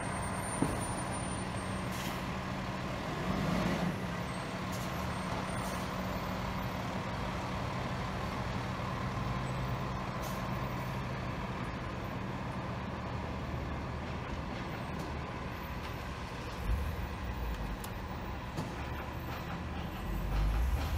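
Truck engines running at idle and low speed, a steady low rumble from a box truck and a UPS package truck. The rumble grows louder near the end as a truck pulls away.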